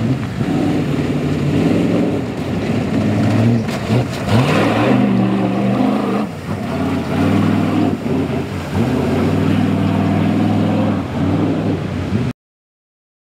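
Ultra4 race Jeep's engine revving under hard throttle as it splashes through a shallow creek, the pitch climbing and dropping several times as the driver works the throttle. The sound cuts off suddenly about a second before the end.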